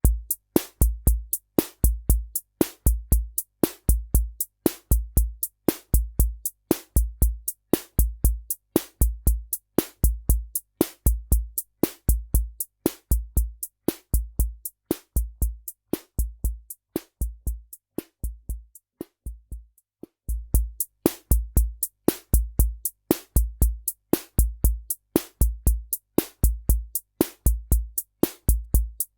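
Korg SR-120 Mini Pops analog drum machine playing its Rock rhythm: regular deep bass-drum thumps under a fast run of sharp ticking hits. A few seconds past the middle the pattern changes and the kick thins out, then the full beat comes back.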